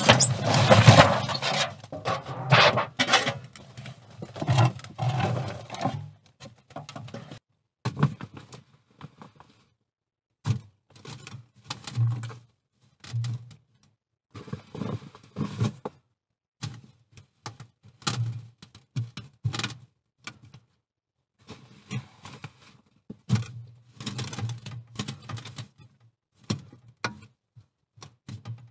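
Wet clay being pressed and patted by gloved hand onto a sheet-metal stove around the chimney pipe. The first few seconds hold a loud stretch of scraping and rustling as earth is worked by hand, then come scattered soft pats and dull thuds with short quiet gaps between them.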